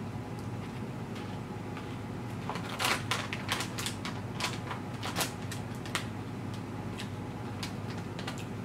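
Crunching of a crisp Japanese rice cracker (senbei) being bitten and chewed: irregular sharp crunches, thickest in the middle, over a steady low hum.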